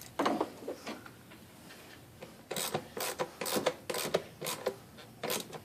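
Metal clicking and scraping in a truck's engine bay as an extendable pickup tool fishes for a dropped 10 mm part: a short rub just after the start, then about eight sharp, irregular clicks over the next three seconds.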